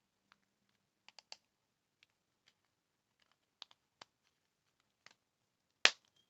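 Small scattered plastic clicks and taps from handling a Kia Soul key fob's case and its CR2032 coin-cell battery, with one much louder click near the end.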